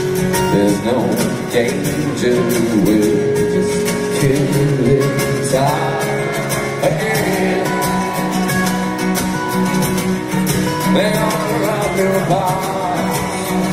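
Live acoustic rock band playing: strummed acoustic guitars, a male lead singer and steady hand percussion on a wooden box.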